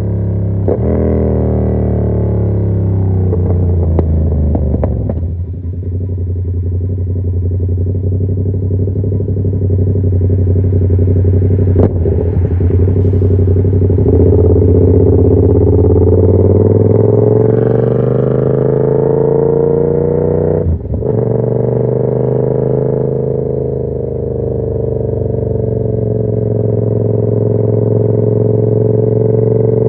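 Yamaha MT-07's parallel-twin engine through an aftermarket SC Project CR-T carbon exhaust while riding. The revs fall over the first five seconds, then pull up and hold. There is a sharp break about 21 seconds in, like a gear change, before the engine settles into a steady cruise.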